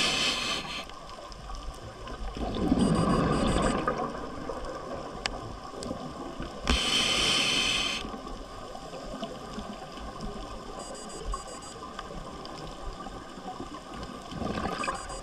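A scuba diver breathes through a regulator underwater. There is a hissing inhale at the start and again about seven seconds in, with a gurgling rush of exhaled bubbles between them.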